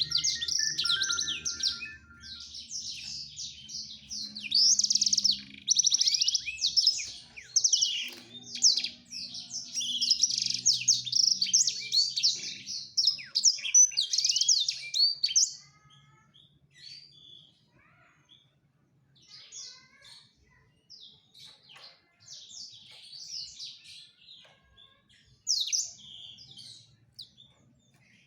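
Male black-throated canary (blackthroat) singing its courtship song to a female: a long, rapid, high twittering warble, dense and unbroken for about fifteen seconds, then only scattered short notes.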